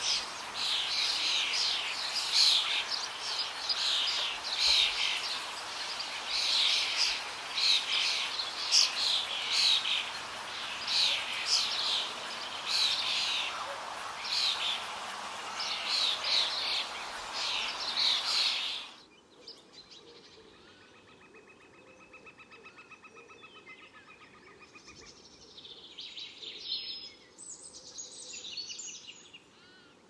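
Bird calls: rapid, repeated high-pitched chirping for about the first two-thirds, cutting off suddenly. Fainter, thinner held calls follow, with a few brief high notes near the end.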